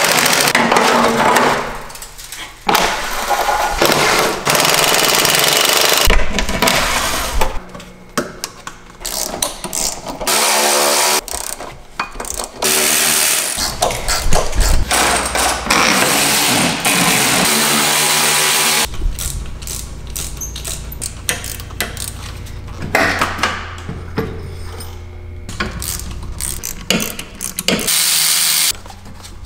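Cordless impact wrench hammering in several bursts of a second or two each as bolts are loosened on the car's underside, with clinks and ratcheting of hand tools in the quieter gaps.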